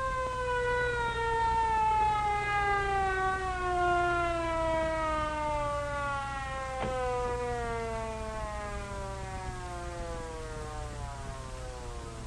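Ambulance siren winding down: one long wail that falls slowly and steadily in pitch and fades toward the end, over a steady low hum.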